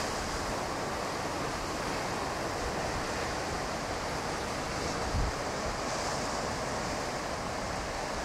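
Ocean surf, a steady rushing wash of waves, with a brief low thump about five seconds in.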